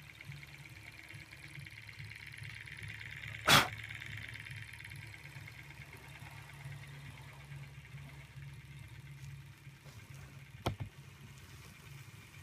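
Model Stirling hot-air engines running with a steady soft mechanical whir. A single sharp knock about three and a half seconds in, and a fainter click near the end.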